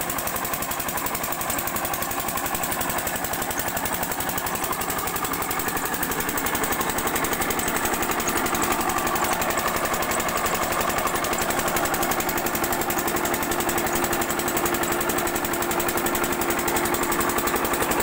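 Single-cylinder 8 hp diesel water-pump engine running steadily with a rapid, even firing beat, along with water gushing and splashing from the pump's outlet pipe into a channel.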